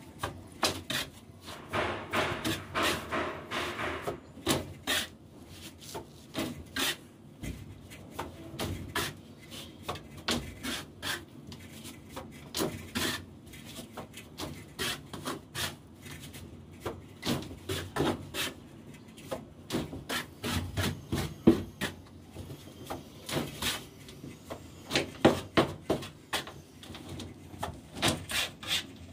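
Hand trowel scraping and scooping wet cement mortar off a board and slapping it onto a concrete ceiling, in irregular strokes with sharp knocks.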